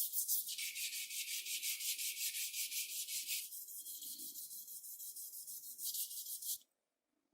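Quick, even back-and-forth rubbing strokes on a small part of a model car, about six a second with a hissy, scratchy texture, stopping suddenly near the end.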